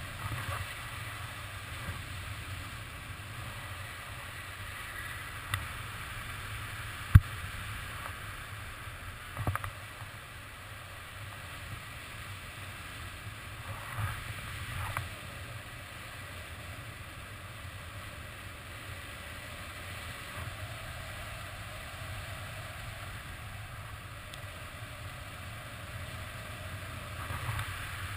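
Steady rush of wind over the camera microphone on a paraglider in flight. A few short knocks and rustles break it, with one sharp click about a quarter of the way in.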